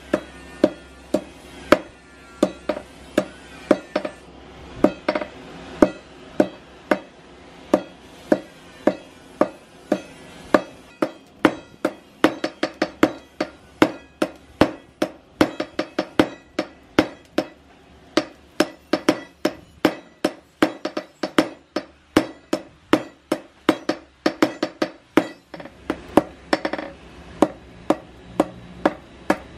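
Hand hammer striking red-hot bearing steel on a round steel post anvil, forging a knife blade: sharp metallic blows in a steady rhythm, about two a second at first and quickening to about three a second in the middle.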